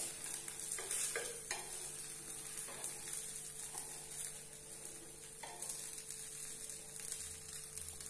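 A pancake sizzling quietly in oil on a hot nonstick griddle, with a few light taps and scrapes of a steel spatula against the pan and a faint steady hum underneath.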